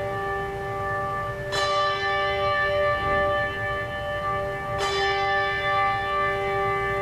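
Bells ringing in sustained, overlapping tones, with two fresh strikes, one about a second and a half in and another near five seconds in.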